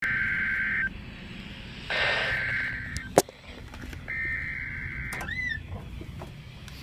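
Emergency Alert System SAME header: three bursts of buzzy digital data tones, each about a second long with a second's gap between them, announcing the coming warning. A sharp click comes about three seconds in, and a brief rising-and-falling chirp follows the last burst.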